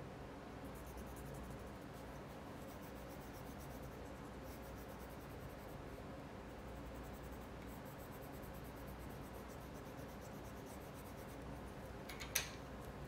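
Hand colouring on paper: intermittent scratchy strokes of a pen or coloured pencil, coming in short spells. A single sharp tap sounds near the end.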